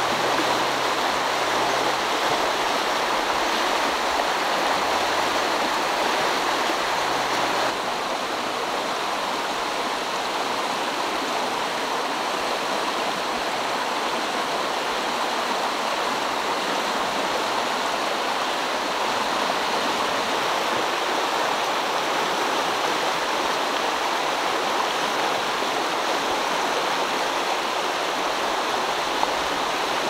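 Shallow mountain stream rushing steadily over rocks and riffles, a continuous rush of water that shifts slightly in tone about eight seconds in.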